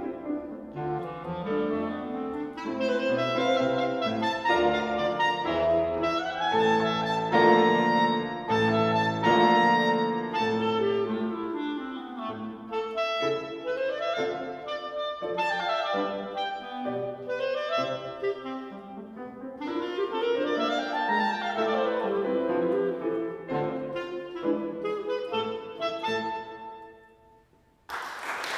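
Clarinet playing with piano accompaniment, with fast runs that climb and fall; the music dies away near the end and applause breaks out just before the close.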